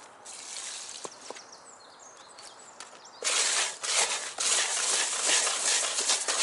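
Hands kneading and mixing damp method-feeder groundbait in a bowl: a loud gritty rustling that starts suddenly about three seconds in and carries on. Before it, only a couple of small clicks.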